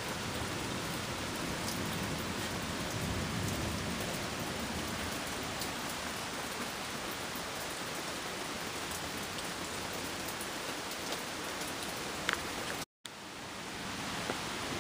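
Light rain of a sun shower falling steadily on wet pavement, foliage and a deck, a soft even hiss at the tail end of a thunderstorm. The sound cuts out for a moment near the end and comes back quieter.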